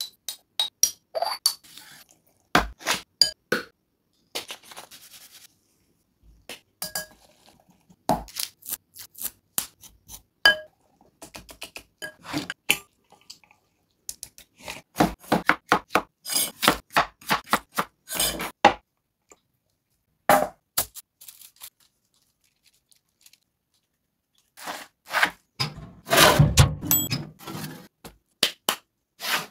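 Cooking ASMR: a metal spoon clinks and taps against glass spice jars and a glass mixing bowl in quick clusters of short clicks, broken by silent gaps. Near the end comes a longer, heavier burst of noise, the loudest part.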